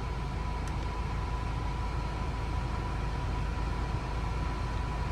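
Honda Accord engine idling steadily, with a thin steady high tone running over the low rumble.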